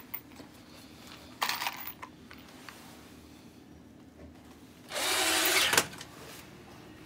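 Cordless drill-driver running in one short burst of under a second, about five seconds in. Earlier, a brief rattle as the plastic box of screws is handled.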